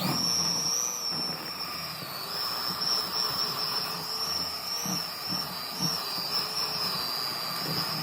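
Small electric kitchen mixer running, its beaters working flour into cookie dough in a bowl: a steady motor whine, high-pitched and wavering slightly as the load changes, over a noisy rattle. It starts suddenly.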